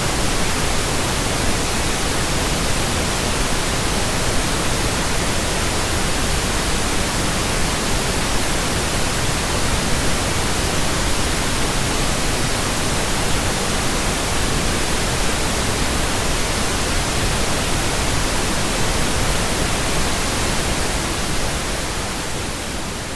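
Steady, even pink noise, a smooth full-range hiss with no tones in it, that begins to fade out near the end.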